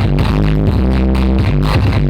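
Loud electronic dance music with a steady beat and heavy deep bass, played through a large outdoor sound system during a sound check.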